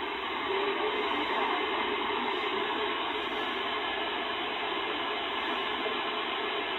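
Steady shortwave static from a Chinese Malachite-clone DSP SDR receiver tuned to the RAF weather station on 5450 kHz upper sideband. Little if anything of the voice broadcast comes through the hiss.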